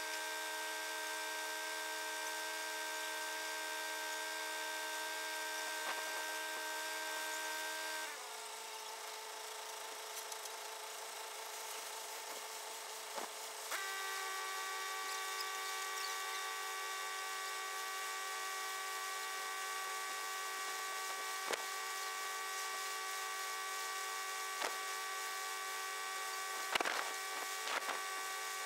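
Concrete mixer truck running while it discharges concrete, a steady high mechanical whine. The whine drops in pitch about eight seconds in and steps up sharply a few seconds later, as the revs change. A few short knocks come near the end.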